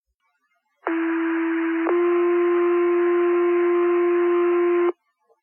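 Two-tone sequential paging alert over fire dispatch radio, with hiss. A steady tone sounds for about a second and steps straight into a slightly higher tone held for about three seconds, then cuts off. It is the tone that sets off the volunteer firefighters' pagers for the station.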